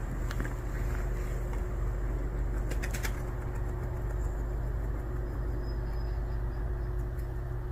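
Steady low outdoor rumble with a light hiss, and a short run of faint clicks about three seconds in.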